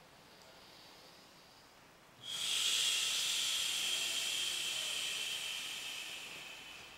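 A long hissing breath out, starting suddenly about two seconds in and tapering off over about four seconds, as both hands press down into an oiled abdomen during a massage.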